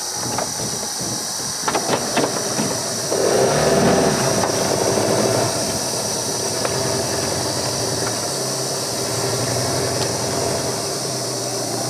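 Boat motor running steadily, louder for a couple of seconds about three seconds in.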